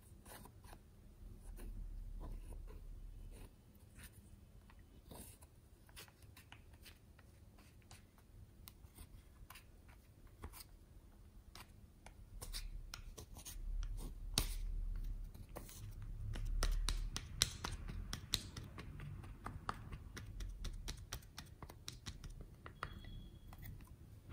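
Plastic spatula scraping and breaking up pressed blush powder in a plastic compact: a dense run of small scratchy clicks and crumbling, with dull handling bumps.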